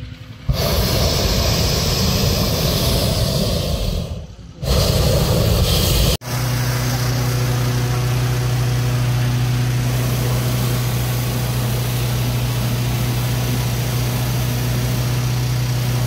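Hot-air balloon launch equipment running loudly: a rushing roar that breaks off briefly about four seconds in, then after about six seconds settles into a steady roar with a low, engine-like hum through it.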